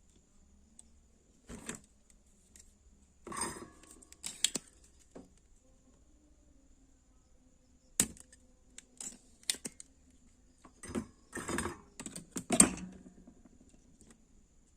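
Scattered clicks, knocks and rattles of small plastic and metal parts of a light bulb being handled and pulled apart, in uneven bursts with the loudest knock near the end.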